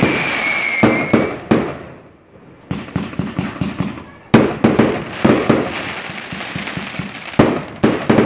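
Aerial fireworks launching and bursting overhead: a whistle falling in pitch in the first second, then a string of sharp bangs and crackles. There is a brief lull around two seconds in, and the loudest bang comes about four seconds in.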